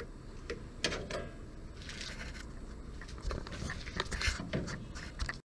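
Faint clicks, scrapes and rustling of a hand-pump cooling-system pressure tester being handled on a radiator filler neck, used to check for a coolant leak.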